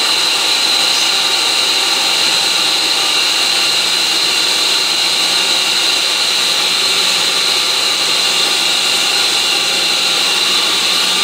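Golf-course irrigation pump station running steadily in fill mode, its pump slowly filling the mainline: an even mechanical whir with a steady high whine over it.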